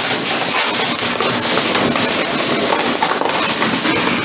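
Packaging crinkling and tearing as a mailed package is opened by hand: a dense, continuous crackle.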